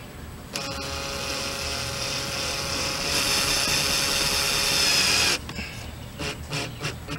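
Cordless drill driving a screw through a plastic tail light housing into the camper body, its motor giving a steady whine for about five seconds that gets louder about halfway through, then stops abruptly. A few light clicks follow.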